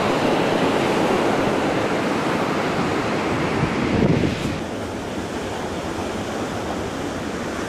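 Ocean surf breaking and washing on the shore, with wind on the microphone. A wave surges about four seconds in, and after that the sound is a little softer.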